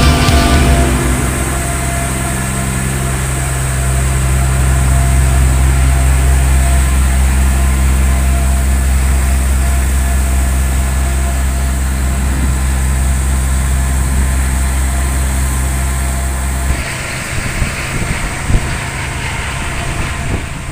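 Bunker vessel's marine diesel engine running steadily under way, a deep hum with the rush of its propeller wash churning the water. Near the end the engine hum drops away, leaving the rushing hiss and a few knocks.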